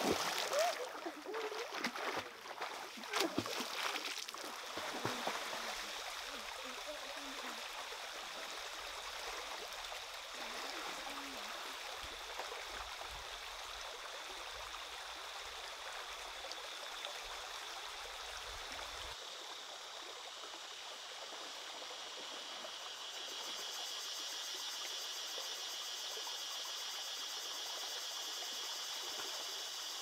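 Splashing of people swimming through a shallow stream for the first few seconds, then steady flowing, trickling stream water.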